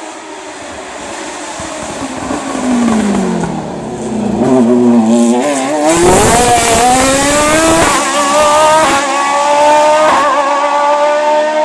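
Race car engine on a hillclimb: its pitch falls as the car brakes and downshifts into a corner, then it accelerates hard away past the microphone, climbing through the gears with upshifts about eight and nine seconds in.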